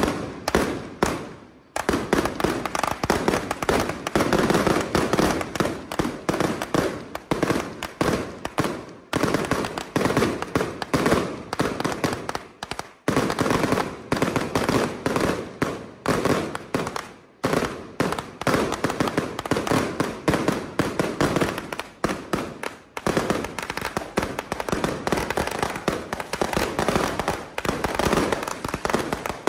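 A long string of firecrackers laid on the ground going off in a dense, rapid barrage of bangs, with a few brief lulls.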